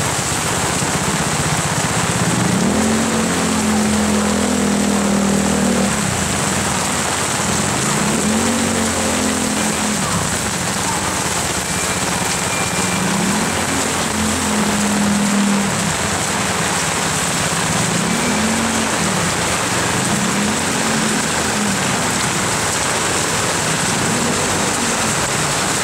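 Heavy rain falling steadily, with a low engine hum from slow-moving vehicles that rises and falls several times.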